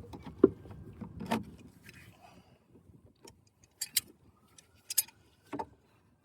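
Scattered metallic clicks and knocks of tools and parts being handled while working on an engine: two louder knocks in the first second and a half, then several lighter, sharper clicks later on.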